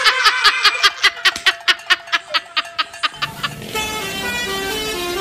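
A fast run of clicks that slows down over about three seconds, then a multi-tone 'telolet basuri' bus horn playing a stepped tune.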